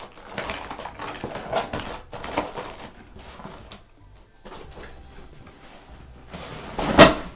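Cardboard boxes and plastic clamshell packaging being handled and shifted, with rustles, scrapes and light knocks, then one loud thump near the end.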